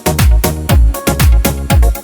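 Korg Pa300 arranger keyboard playing an Armenian-style rhythm: a dance beat with a deep kick drum whose pitch drops, about two beats a second, under keyboard melody and chords.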